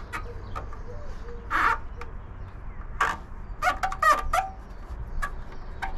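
Birds calling: a low wavering call in the first second and a half, then several short harsh calls about one and a half, three and four seconds in, over a low steady rumble.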